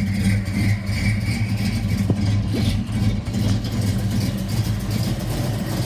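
1991 Ford Mustang notchback's engine running at a steady idle.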